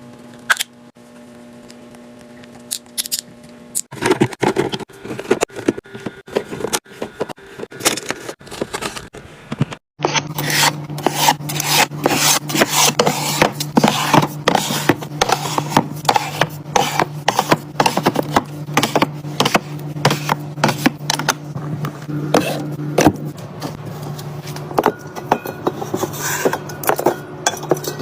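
Food packaging and containers handled and set into a fridge: a dense run of clicks, taps and rubbing of plastic and glass. It breaks off abruptly about ten seconds in and resumes with a steady low hum underneath.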